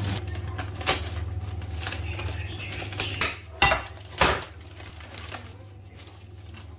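Gloved hands handling potted houseplants: knocks and clatter of plant pots and rustling plastic plant sleeves, with sharper knocks about a second in and twice between three and a half and four and a half seconds in. A steady low hum runs underneath.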